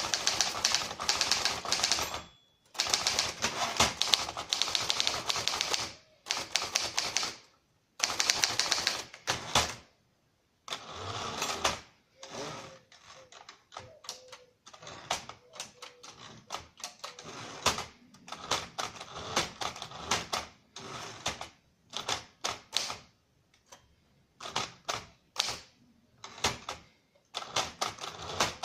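1939 Triumph Standard 12 manual typewriter being typed on: quick runs of key strikes for about the first ten seconds, broken by short pauses, then slower, separate keystrokes.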